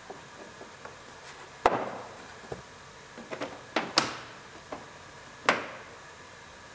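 Louvered plastic air vent being pushed and snapped into its opening in the back wall of a pickup cab: a few sharp plastic knocks and clicks with small ticks between, the sharpest about four seconds in.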